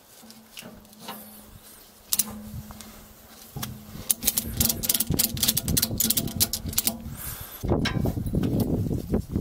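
Ratchet strap being cranked tight: a run of quick, sharp ratchet clicks for about three seconds. Loud rustling of handling follows near the end.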